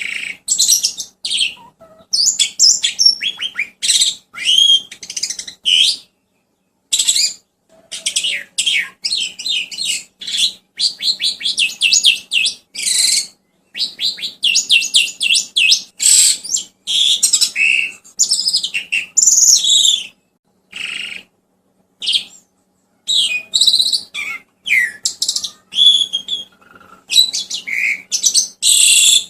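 Songbird singing a rapid, varied song of high chirps, trills and whistled glides in bursts of a few seconds, broken by short silent gaps.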